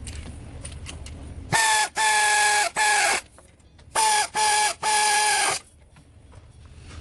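A loud pitched horn-like tone sounding in two groups of three blasts, the second group coming about a second after the first.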